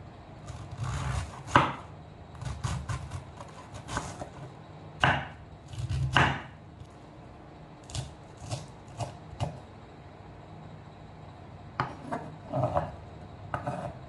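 Chef's knife slicing through a wedge of cabbage and knocking on a wooden chopping board, in irregular runs of cuts. The cutting pauses for about two seconds after the middle, then starts again.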